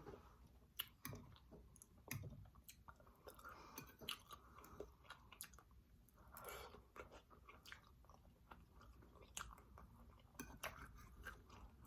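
Faint chewing and mouth sounds of a person eating, with many small scattered clicks and smacks.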